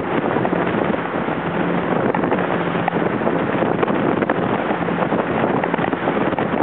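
Watercraft engine running steadily at speed with a faint steady hum, buried under heavy wind buffeting the microphone and rushing water.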